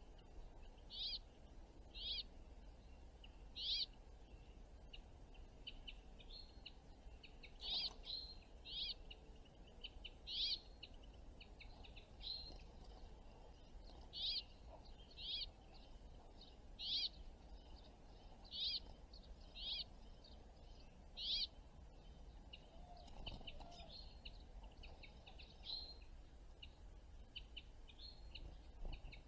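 A small songbird calling over and over, a short high note roughly once a second, with softer, quicker chirps near the end.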